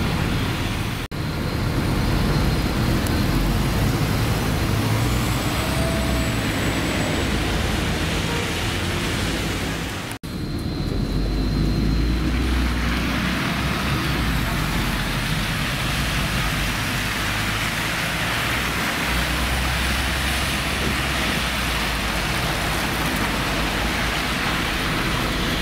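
Articulated city bus engine running close by, with a low steady rumble and street traffic around it. The sound cuts out abruptly twice, about a second in and about ten seconds in, and from about twelve seconds on a broad hiss grows stronger.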